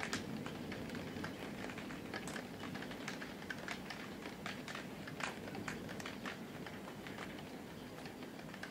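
Raindrops striking a window pane in irregular sharp ticks, several a second, over a low steady wash of storm rain.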